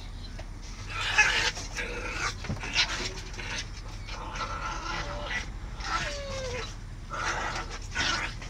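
Puppies squabbling over a food bowl: short growls and yaps come in bursts from about a second in. A brief falling whine sounds around six seconds in.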